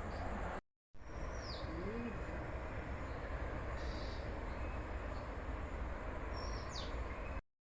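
Outdoor ambience: a steady noisy background with a low rumble, over which birds give a few short calls, including two quick falling chirps. The sound drops out completely for a moment just under a second in and stops abruptly near the end.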